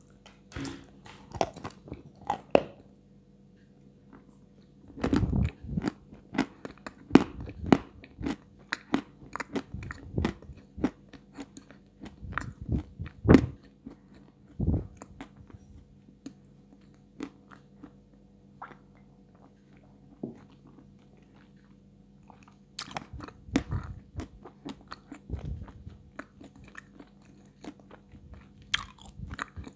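Close-up crunching and chewing of a dry, medium-hard chunk of white edible clay (Astana 2), from a microphone held at the lips. The sharp crunches come in clusters, with a quieter stretch of chewing in the middle.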